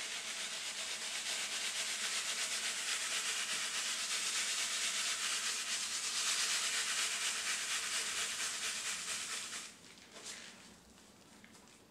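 Chopped charcoal rattling across a wooden-framed sieve screen as it is shaken back and forth, the fines sifting through: screening the charcoal to sort it by size. The rattle stops shortly before the end, with one brief shake after.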